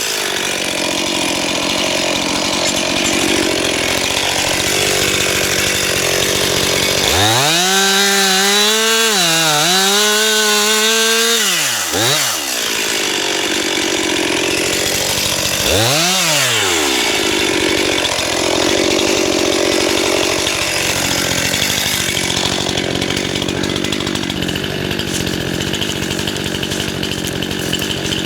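Stihl MS 261 two-stroke chainsaw running at high revs and cutting through wood. The engine pitch climbs, holds and falls between about seven and twelve seconds in, and rises and falls again briefly near sixteen seconds.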